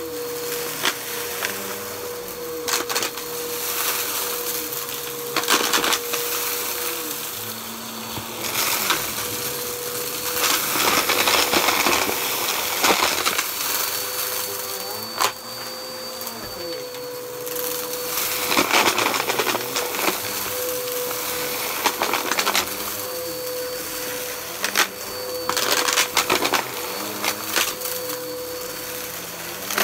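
Bissell upright vacuum cleaner running over carpet, a steady motor whine under its suction noise, swelling and easing as it is pushed back and forth. Repeated bursts of crunching and rattling as the brushroll picks up debris.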